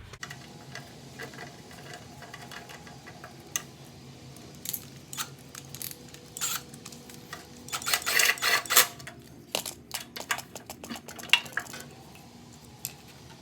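Light metal clinks and rattles of small engine parts and a hand tool being handled while the gas tank and carburetor are fitted and bolted back onto a Briggs & Stratton Classic lawnmower engine. The clicks are scattered, with a quick, louder run of clatter a little past the middle.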